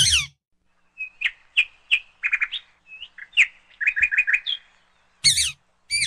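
Indian ringneck parakeet (rose-ringed parakeet) calling: a harsh screech at the start, then a quick run of short chirps, and two more harsh screeches near the end.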